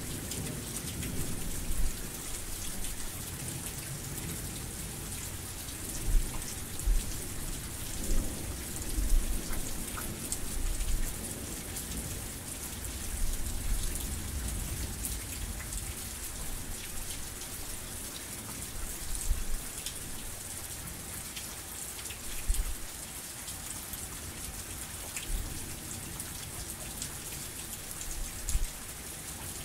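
Heavy rain falling steadily, a dense even hiss, with occasional short low thumps scattered through it.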